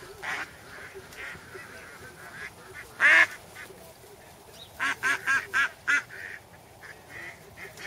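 Blue jay calling from close by: one loud call about three seconds in, then a quick run of five calls about a second and a half later, with fainter calls in between.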